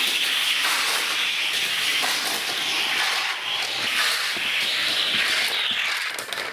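Toy car rolling down a plastic race track: a steady hissing rush with faint clicks, which stops abruptly near the end.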